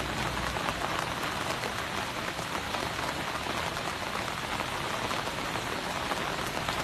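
Steady hiss of rain falling on floodwater.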